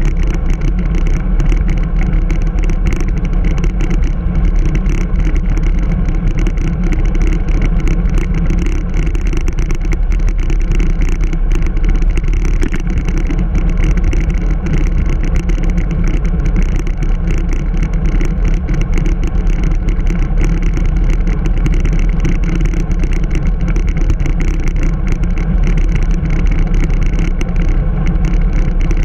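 Steady wind rumble on a handlebar-mounted GoPro's microphone from a road bike riding at speed, loud and unbroken.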